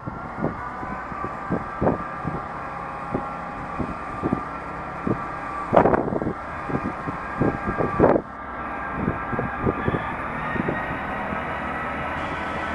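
Class 158 diesel multiple unit's engines running steadily as it draws slowly into the platform, with a run of clicks and knocks from the train and two louder surges about six and eight seconds in.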